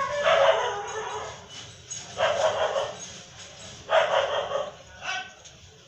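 A dog barking about four times, roughly every one and a half to two seconds, each bark fairly drawn out.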